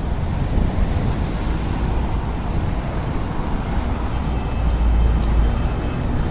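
City street traffic noise: a steady low rumble that swells briefly about five seconds in.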